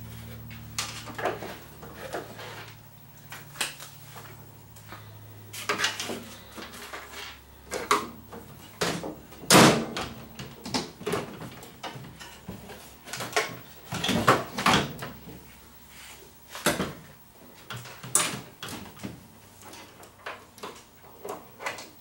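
Scattered clicks and knocks from handling a microwave oven's door and swung-out front control panel while its door interlock switches are tested, with a low hum that fades out in the first few seconds.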